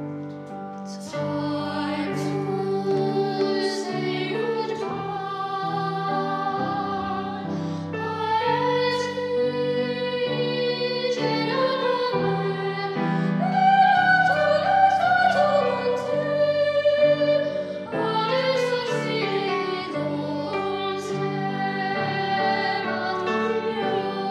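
Boy trebles singing a classical choral piece in parts, with long held notes, accompanied by an upright piano.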